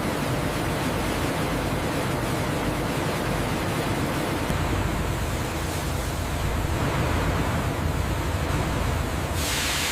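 Steady dense noise, with a brief louder hiss near the end.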